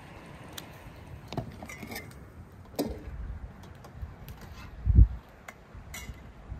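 Chestnut shells cracking and snapping as they are peeled by hand, with shell pieces clicking onto an enamel plate. About five seconds in comes a single brief low thump.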